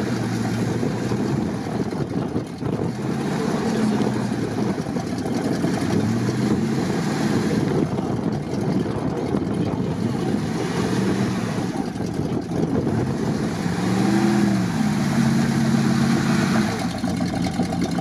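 Pickup truck's engine revving up and easing off again and again, several rising pushes a few seconds long, as the truck struggles to drive out of deep ruts in wet peat mud.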